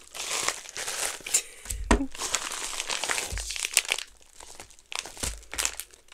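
Paper packaging crinkling and rustling as a small parcel is unwrapped by hand, with a few dull bumps of handling.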